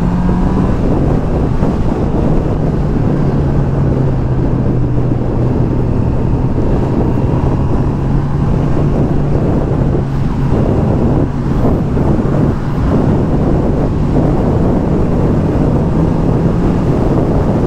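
Honda CB650R's stock inline-four engine and exhaust running steadily while riding at road speed, with wind rushing over the microphone. The engine note drops in pitch a few seconds in and rises slightly near the end.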